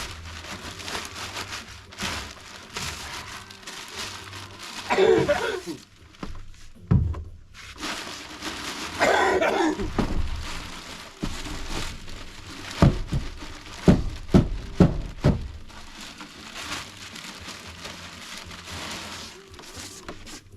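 Rustling and handling noise of composting toilet waste being emptied from the solids container into a plastic bag, with a quick run of about five dull thumps in the middle as the container is knocked.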